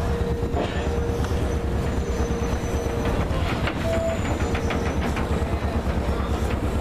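Steady low rumble of a moored harbour shuttle boat's engine running, with a faint steady hum over it and a few light knocks.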